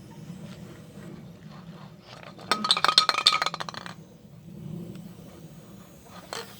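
Spray-paint can being shaken, its mixing ball rattling in a rapid run of clinks for about a second and a half, about halfway through. A single click follows near the end.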